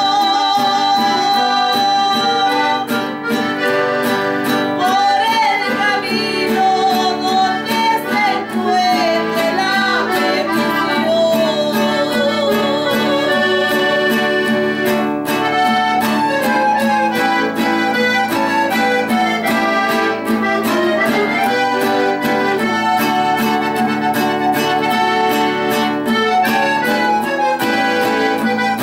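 Red button accordion and nylon-string acoustic guitar playing a song together, with a voice singing the melody in stretches.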